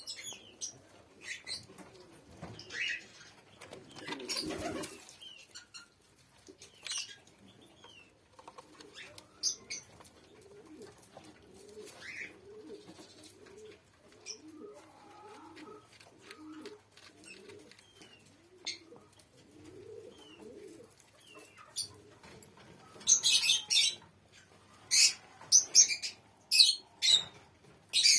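Doves cooing softly, in short repeated phrases, through much of the stretch. A loud noisy burst comes about four seconds in, and a run of loud, sharp rustling bursts comes near the end.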